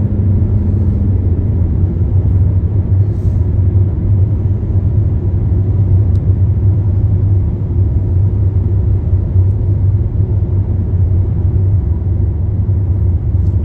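A small sporty car running on the road, a loud, steady low rumble of engine and road noise with no revving or change in pitch.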